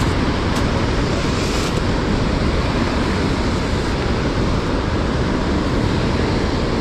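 Loud, steady rush of turbulent river water churning below a dam's gates, with wind buffeting the microphone.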